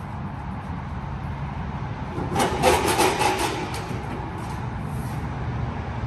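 Tire-service work at a semi truck's wheels: a steady low hum throughout, with a burst of rapid rattling, scraping noise about two and a half seconds in that lasts roughly a second and a half.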